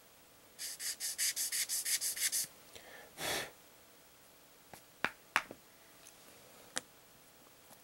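Rapid back-and-forth scraping on a plastic model kit part, about ten quick strokes in under two seconds. A short breathy hiss follows, then a few sharp clicks.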